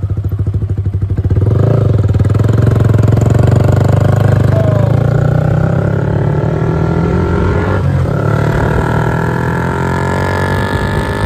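Yamaha R15 V3's single-cylinder engine running while being ridden, growing louder about a second and a half in and then holding steady at cruising speed.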